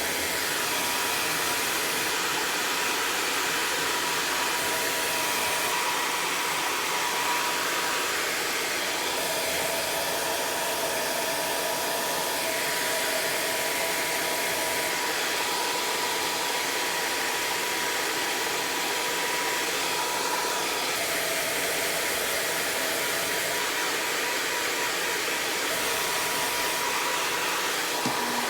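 Hair dryer blowing steadily, with a thin whine from its motor and a tone that shifts now and then.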